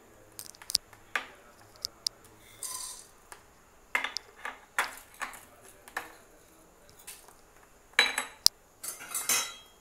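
Dry chana dal, urad dal and mustard seeds being dropped into a nonstick pan of oil for a tempering, heard as a series of sharp clicks and clinks with short rattling bursts. The loudest come near the end.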